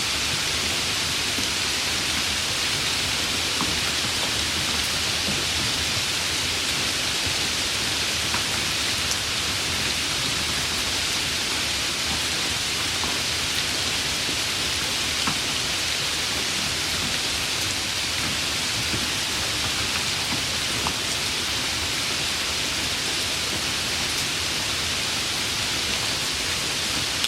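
Steady rain falling, an even hiss with a few scattered ticks of drops.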